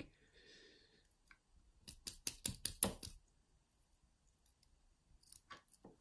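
Small metallic clicks as pins and springs are handled at a thumb-turn euro cylinder lock while it is re-pinned: a quick run of about seven clicks about two seconds in, then a few fainter clicks near the end.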